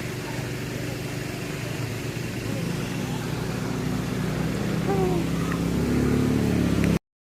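Motorcycle engine running and picking up speed, its pitch stepping up and growing louder, then the sound cuts off suddenly near the end.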